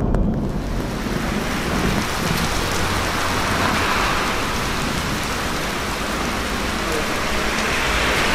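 Heavy rain pouring down onto a street and pavement in a sudden rainstorm, a steady dense hiss.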